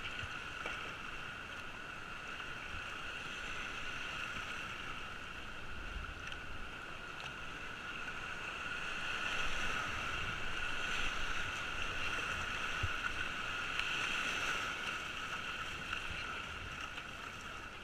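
Steady rush and splash of river white water around a racing kayak being paddled down a low-water rapid, a little louder in the middle.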